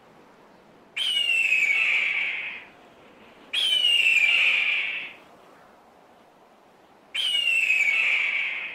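A hawk screaming three times, each a harsh, falling scream about a second and a half long, with short pauses between.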